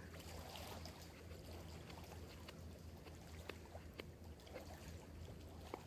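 Campfire crackling faintly: scattered sharp pops at irregular intervals over a low steady hum.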